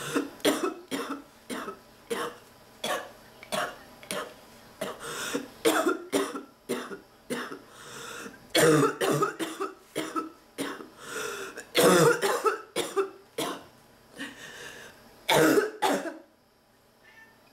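A person coughing over and over in fits, many short coughs in quick runs with brief pauses between them: the persistent cough of someone sick with an illness she is still fighting off.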